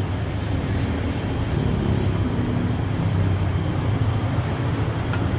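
An engine running steadily with a low rumble, with several light ticks or taps over the first two seconds and two more near the end.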